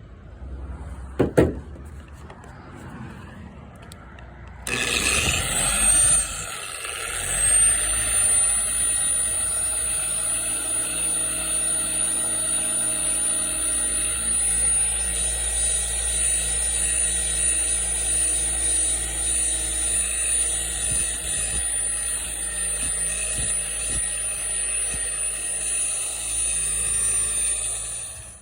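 Orbital buffer starting up about five seconds in and running steadily with a high whine as it polishes a faded plastic headlight lens, stopping just before the end. A couple of sharp knocks come before it starts.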